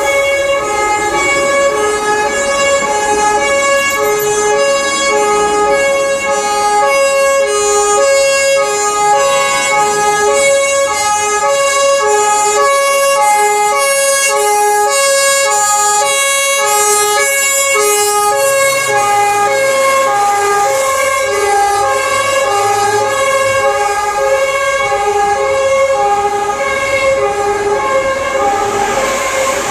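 Two-tone siren of a fire brigade command car on an emergency run, switching steadily back and forth between a high and a low note over traffic noise.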